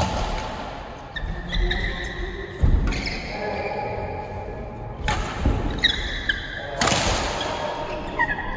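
Badminton rally: a few sharp smacks of rackets hitting the shuttlecock, thuds of players' footwork, and short squeaks of shoes on the court floor.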